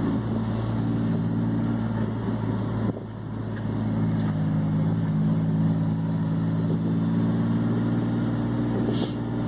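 Chevy S10 pickup engine running steadily under throttle. The engine sound drops briefly about three seconds in, then comes back strong and holds.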